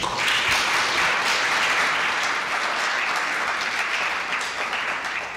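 Audience applauding, starting at once and tapering off near the end.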